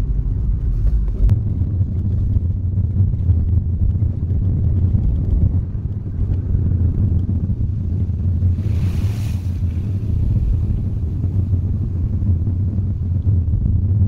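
Car driving steadily, heard from inside the cabin: a low, even rumble of engine and tyres on the road, with a short hiss about nine seconds in.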